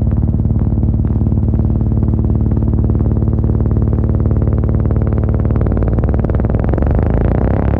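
Electronic techno music: a deep, sustained synthesizer bass under a fast pulsing synth sequence. The sound grows gradually brighter over the last few seconds as the filter opens.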